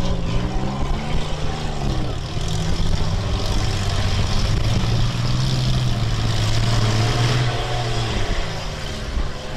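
Demolition-derby minivan engines revving under load, their pitch rising and falling, with one engine held at steady high revs for several seconds in the middle.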